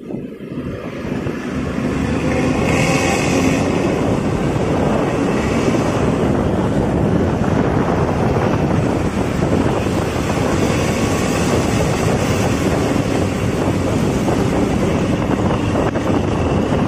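Intercity bus's diesel engine and its growling 'ngorok' (snoring) exhaust, getting louder over the first two seconds as it pulls away, then running hard at a steady loud level. Wind is on the microphone.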